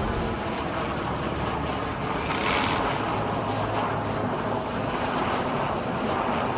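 Low-flying airplane passing overhead, its engine a steady drone, with a brief hissing rush about two seconds in.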